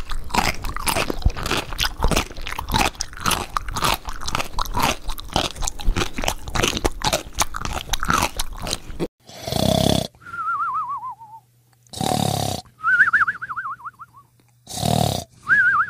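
Crunchy munching sound effect of popcorn being chewed, a rapid run of crunches for about nine seconds. Then it stops, and three short bursts follow, each trailed by a warbling tone that falls in pitch.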